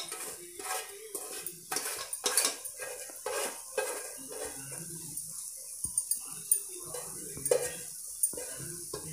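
A metal spatula scraping and clinking against a kadai in irregular strokes as grated carrot is stirred and fried, over a steady sizzle of hot fat.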